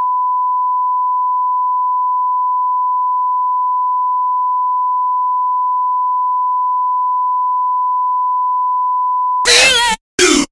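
A steady electronic beep tone at one unchanging pitch, held for about nine and a half seconds and cut off suddenly. Short bursts of a voice break in near the end.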